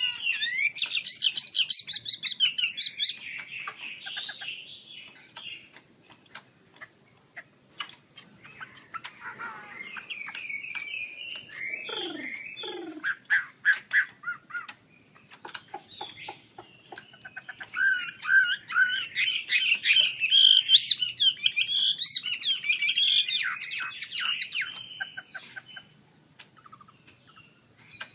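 Chinese hwamei singing loud, fast, varied whistled phrases in three long bouts with short pauses between. Sharp clicks are scattered through the pauses.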